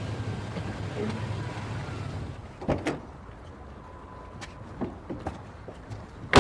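Door sounds over a low rumble: two knocks close together about halfway through, a few small clicks, then a loud sharp slam right at the end.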